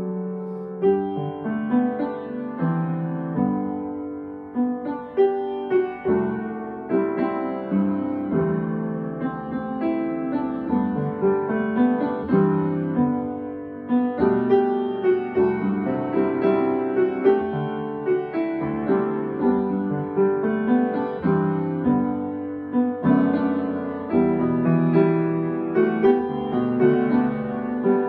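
Background piano music, with notes struck one after another and left to ring.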